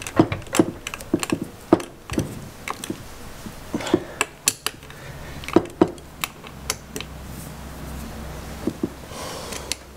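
Allen key and 13 mm ring spanner clicking and tapping on metal while the M8 cap screw of a kart engine's radiator mount is tightened: irregular sharp clinks, a few at a time.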